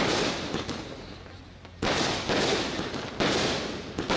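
Fireworks set off at ground level: three sudden bangs about a second and a half apart, each dying away slowly.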